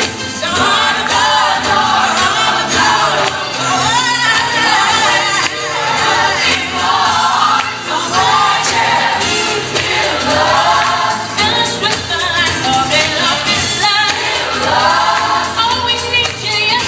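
Gospel choir singing with musical backing, continuous and fairly loud.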